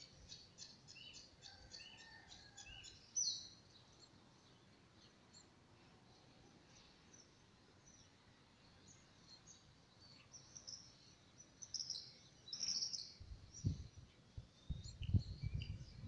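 Small birds chirping in the background: a run of short, evenly repeated chirps in the first three seconds, then scattered high calls. A few low, dull thumps come near the end.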